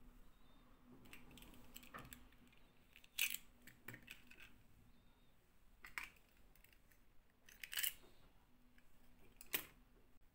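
Small plastic dolls and their stiff clip-on plastic dresses handled on a table: scattered light taps and clicks, with a few sharper plastic clicks roughly every two seconds. A faint steady hum lies underneath.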